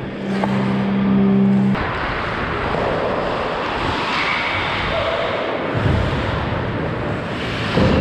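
Hockey skate blades gliding and scraping on rink ice, with air rushing over a helmet-mounted action camera as the skater moves up the ice. A steady low hum runs through the first second and a half before the skating noise takes over.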